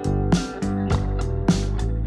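Background instrumental music with sustained notes and a steady beat.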